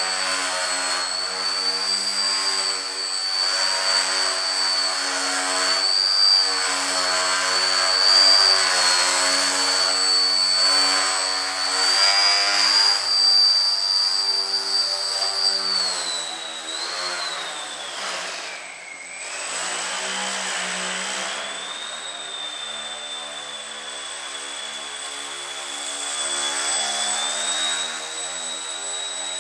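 Electric motor and propeller of an indoor foam 3D RC plane, running with a steady high whine. The pitch dips sharply about eighteen seconds in as the throttle is eased off, then comes back up and holds a little lower.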